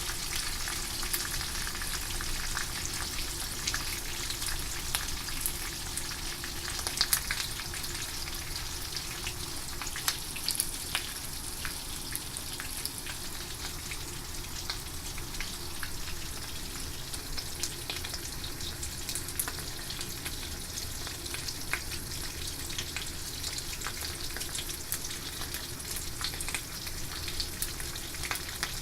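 Horse mackerel frying in hot oil: a steady sizzle with frequent small crackles and pops, a few louder pops around 7 and 10 seconds in.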